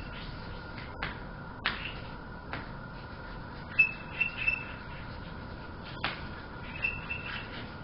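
Chalk on a blackboard during writing and drawing: a few sharp taps of the chalk stick against the board, and short high squeaks about four seconds in and again near the end.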